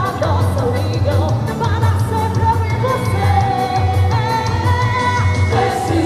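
Quadrilha junina song: a singer's voice over music with a steady, fast beat.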